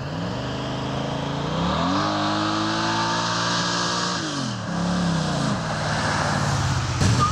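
A 1949 Chevrolet 3100 pickup hot rod's engine pulling hard as the truck accelerates toward and past the camera. The engine note climbs over the first couple of seconds, holds, falls away about four seconds in, and climbs again near the end.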